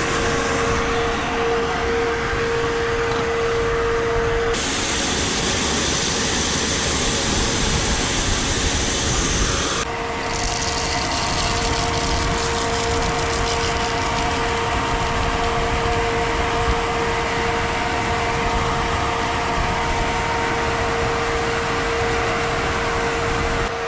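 Grain elevator and pit auger running while shelled corn is unloaded through them: a steady machine drone with a constant hum over a hissing rush. The high hiss changes abruptly twice, about 4 seconds in and about 10 seconds in.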